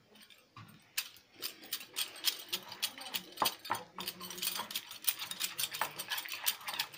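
Steel spoon stirring curd into gram flour in a ceramic bowl: a quick, continuous run of scrapes and clinks against the bowl that starts about a second in.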